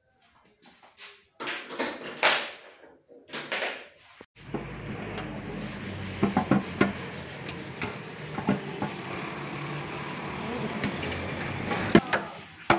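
Motorcycle fuel tank and body panels being handled and fitted onto the frame: rubbing and scraping with scattered sharp clicks and knocks. A steady low hum comes in about four seconds in, and the loudest click comes near the end.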